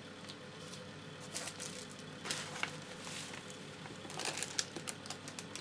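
Plastic packaging crinkling and rustling in short bursts as small parts are handled and unwrapped, with light clicks; quiet for the first second or so.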